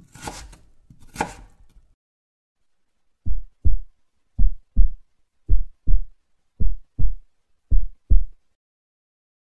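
Heartbeat sound effect: five deep, muffled double thumps (lub-dub), about one beat a second, starting about three seconds in, setting a mood of fright.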